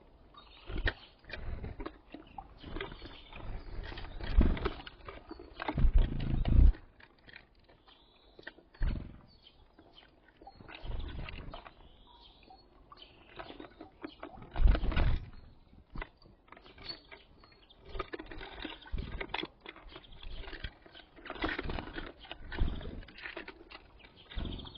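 Gusts of blizzard wind buffeting the microphone, coming in irregular rumbling surges, the strongest a few seconds in and again about halfway through, with scattered short clicks and taps between them.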